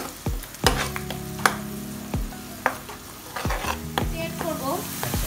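Onion paste and ground spices sizzling in hot oil in a nonstick frying pan while a metal spoon stirs them, scraping and knocking against the pan several times.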